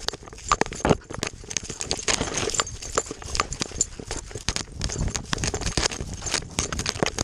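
A dog running through tall dry grass, heard from a camera strapped to its body: a quick, uneven patter of footfalls, with dry stalks rustling and scraping against the camera.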